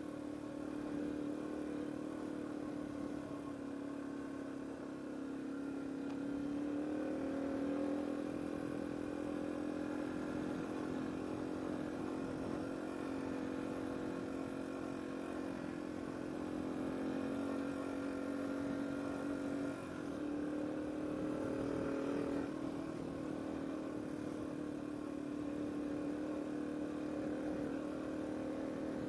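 Yamaha TW200's single-cylinder four-stroke engine running steadily as the motorcycle is ridden, its note rising slightly about seven seconds in and dipping briefly about twenty seconds in.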